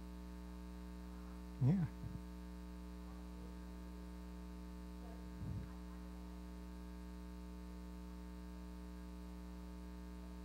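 Steady electrical mains hum picked up by the microphone and sound system, a low hum with a stack of even tones. Two short, faint voice sounds come through, about two seconds and five and a half seconds in.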